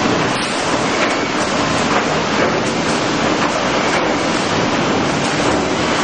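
Small-log sawmill line running: a loud, steady wash of machinery noise from chain transfers, rollers and saws, with faint clattering of boards moving on the conveyors.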